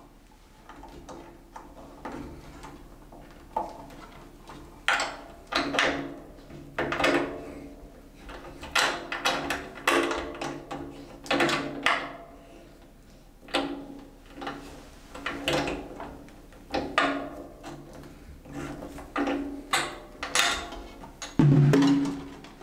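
Drums of a Ludwig drum kit struck one at a time, about twenty irregularly spaced hits, each ringing on with a pitch. The loudest and deepest hit comes near the end.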